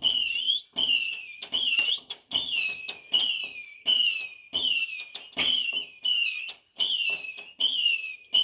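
A whistling firework cake letting off shots in rapid succession: each a sharp pop followed by a short shrill whistle, about one and a half a second.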